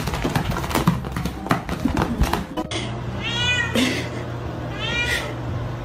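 A quick run of scuffling and knocks, then a domestic cat meowing twice, each meow rising and then falling in pitch, about a second and a half apart.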